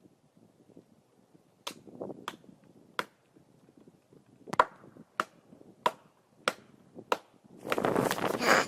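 A run of about eight sharp, solid knocks, a little more than half a second apart. Then, about three-quarters of the way in, a loud, dense rush of noise sets in.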